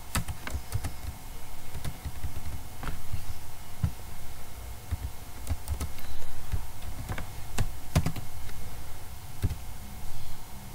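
Computer keyboard typing: scattered, irregular keystrokes.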